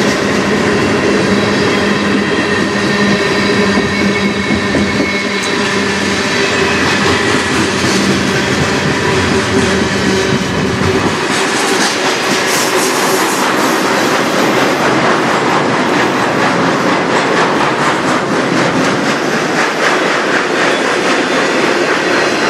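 A CN manifest freight train rolling past at close range, its cars' wheels clacking over the rail joints. A low hum under the first half drops away about halfway through.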